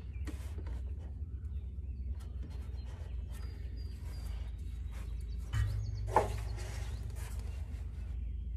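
Large oil filter wrench clicking and scraping on a car oil filter as it is twisted to loosen it, with one sharp click about six seconds in, over a steady low rumble.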